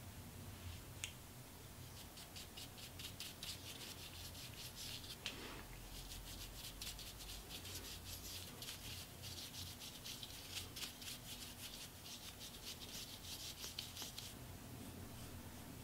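A small angled makeup brush stroking eyebrow powder onto the brow: a quick run of soft, scratchy bristle strokes, several a second, that stops about a second and a half before the end.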